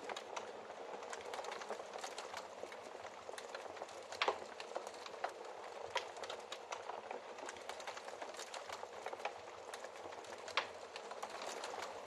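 Wood fire crackling in a fireplace: a steady soft hiss with many small ticks, and a few sharper pops about four, six and ten and a half seconds in.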